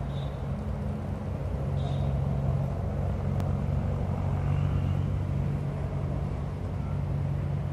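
Steady low engine hum with a rumble underneath, holding at an even level throughout.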